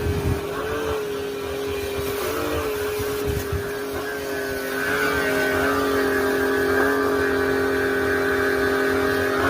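NRT Pro RS 75 HD 600 W electric pressure washer running, its motor and pump holding a steady hum over the hiss of the spray. It gets a little louder, with a higher whine, about halfway through.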